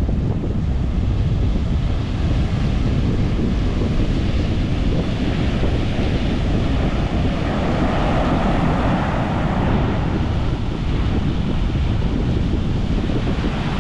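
Strong wind buffeting the microphone, a heavy low rumble, with rough Atlantic surf breaking beneath it.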